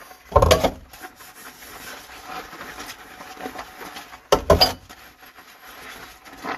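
Cat food bowls being cleaned: quiet rubbing and scraping of scrubbing, broken twice by short, loud clattering knocks of a bowl bumped or set down.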